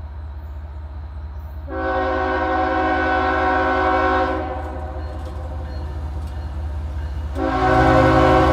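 Diesel freight locomotive's air horn, a chord of several tones, sounding one long blast about two seconds in and another starting near the end. Under it runs the steady low rumble of the lead locomotives' diesel engines as the train approaches.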